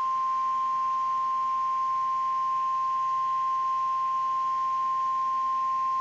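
NOAA Weather Radio's 1050 Hz warning alarm tone: one steady, unbroken high tone, the signal that a warning broadcast, here a severe thunderstorm warning, follows.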